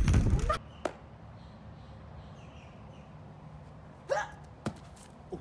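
A loud low rumble cuts off abruptly half a second in, leaving quiet outdoor ambience with a faint hum. About four seconds in, a gymnast gives a short vocal yelp, rising in pitch, as she jumps into a backflip on grass. A sharp knock follows about half a second later.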